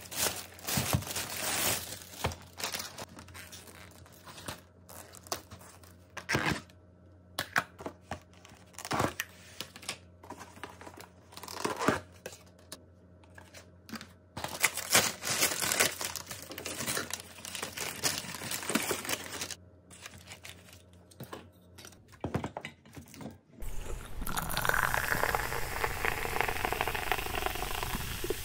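Plastic delivery bag crinkling and rustling, and plastic takeout food containers being handled and opened, with scattered sharp crackles and clatters. A steadier rushing noise takes over for the last few seconds.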